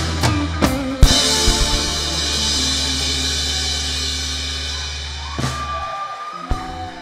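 Live rock band ending a song: drum hits and a cymbal crash, then guitars, bass and cymbals ringing out on a held final chord that slowly dies away, with a couple more drum hits near the end.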